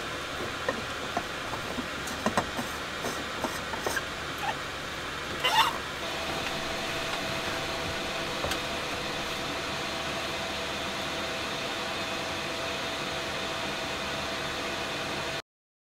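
Steady hiss with light clicks and knocks from a travel tumbler being handled, and a sharper rattle about five and a half seconds in. After that a faint steady tone sits over the hiss.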